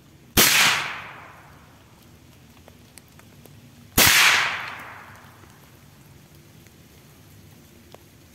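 Two shots from a Saiga-410 semi-automatic .410-bore shotgun, about three and a half seconds apart, each followed by an echo dying away over about a second.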